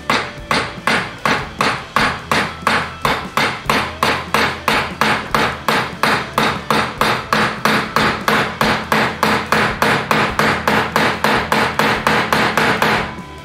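Quick, even hammer taps on metal, about four a second, driving a small part held in pliers down into a steel block clamped in a vise. The taps stop just before the end.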